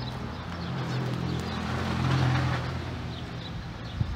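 A steady low engine hum swells to a peak about two seconds in and then fades, like a motor vehicle passing. A few faint bird chirps sound over it.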